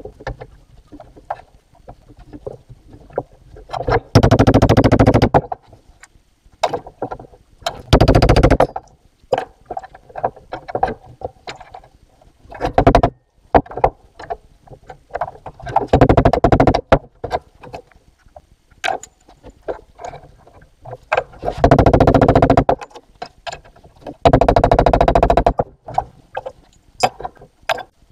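Metalworking with hand tools at a steel bench vise: six loud, rasping bursts of about a second each, a few seconds apart, with clinks and knocks of metal tools and parts between them.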